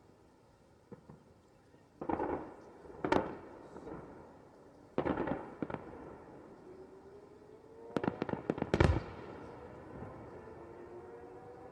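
Fireworks going off: sudden bangs with crackling in clusters, about two, three and five seconds in, then a rapid volley around eight to nine seconds in, the loudest.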